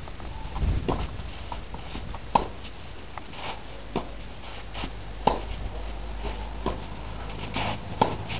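Tennis rally: sharp pops of racket strings hitting the ball, four loud strikes about every one and a half seconds, with fainter hits between. A low rumble comes about a second in.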